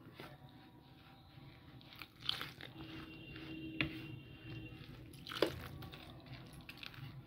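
Metal spoon stirring and scraping through a damp mix of semolina and wheat flour, a soft gritty crunching, with a few light clicks of the spoon against the bowl.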